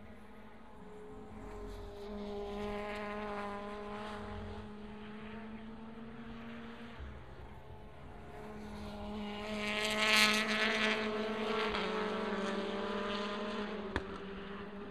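Two WTCC touring cars with 1.6-litre turbocharged four-cylinder engines run through the corner one after the other. The first engine note swells and fades in the first half. The second is louder, peaks about ten seconds in, and its pitch steps down as the driver changes throttle and gear.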